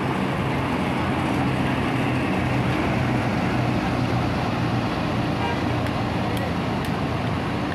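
Coach bus engine running steadily with a low hum as the bus pulls away slowly and drives off.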